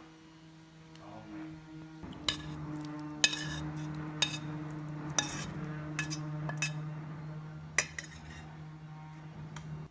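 Utensils clinking against dishes: about eight sharp, separate clinks. A steady low hum runs underneath.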